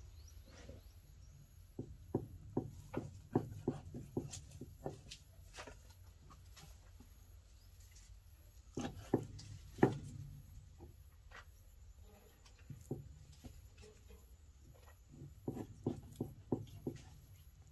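Large kitchen knife cutting raw pork on a round wooden chopping block: irregular groups of sharp knocks as the blade strikes the board, with quieter slicing between them. The loudest knocks come about nine to ten seconds in.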